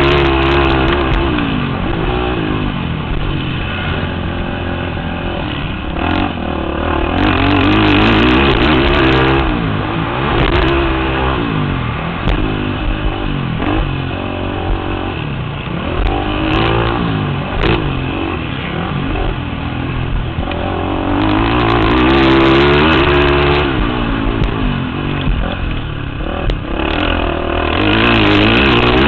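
Racing ATV (quad) engine revving hard and repeatedly rising and falling in pitch as the throttle is opened and closed through the track's turns and jumps, heard close from the rider's helmet camera, with a few sharp knocks along the way.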